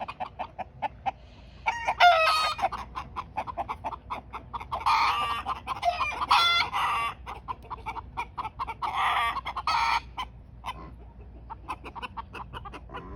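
Backyard chickens clucking in quick short clucks. Louder drawn-out calls come about two seconds in, from about five to seven seconds, and again around nine to ten seconds, among them a rooster crowing.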